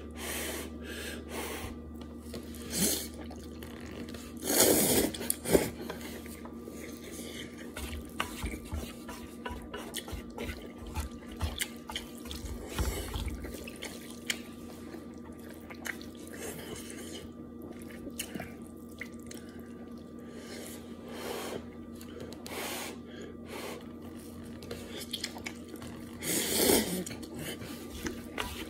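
Close-up eating sounds: instant noodles being slurped and chewed, with many small wet mouth clicks. A few louder slurps stand out, the loudest about five seconds in and near the end.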